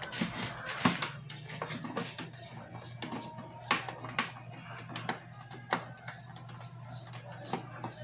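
Irregular sharp clicks and knocks of air conditioner parts and casing being handled and fitted back together, over a steady low hum.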